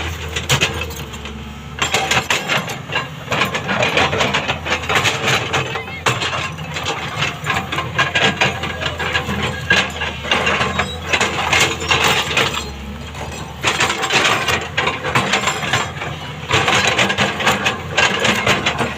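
Diesel engine of a JCB backhoe loader running steadily while it digs, with stones and earth clattering and scraping throughout.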